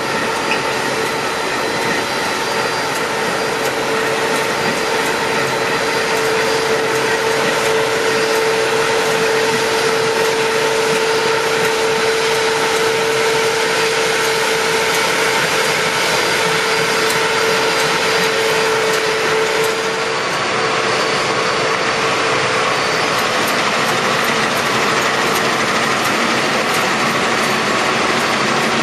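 Combine harvester running steadily while harvesting rice, its engine and threshing machinery giving a constant loud noise with a steady whine over it. The whine fades about two-thirds of the way in.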